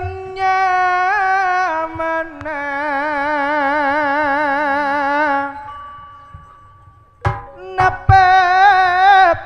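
Tayub music: a singer's long held notes with a wide, wavering vibrato. A few sharp drum strokes come near the end, and another held note follows them.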